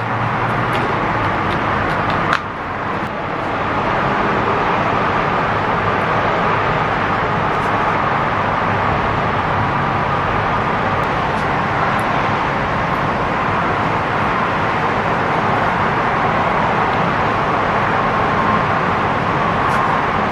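A small dirt-bike engine, the 2019 Kawasaki KLX110's single-cylinder, running steadily, with a single sharp click about two and a half seconds in.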